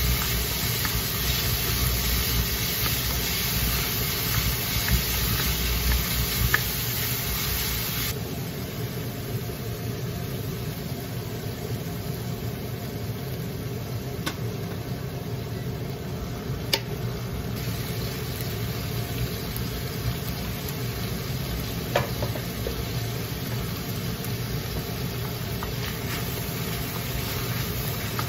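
Diced chicken sizzling in a wok while a wooden spatula stirs it, with a few sharp knocks of the spatula against the pan. A steady low hum runs underneath. The sizzle is louder for the first several seconds, then softer.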